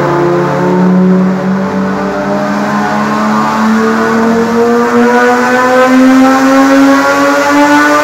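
A Turismo Carretera Dodge race car's engine accelerating under load on a rolling-road dynamometer, loud, its pitch climbing steadily and smoothly as the revs rise.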